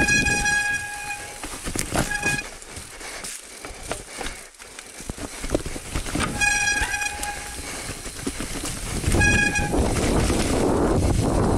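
Mountain bike disc brakes squealing in on-off bursts with a steady high-pitched tone, typical of wet brakes, over the rattle of the bike on the trail. A loud rushing noise takes over near the end.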